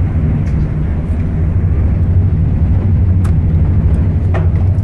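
Steady loud low rumble on a ship's outer deck. A couple of short clicks near the end as a wooden door is opened.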